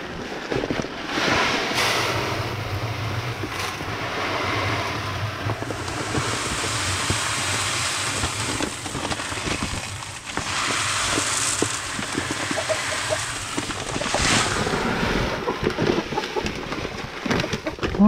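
Wind buffeting the microphone in gusts, a loud rushing noise that swells and eases.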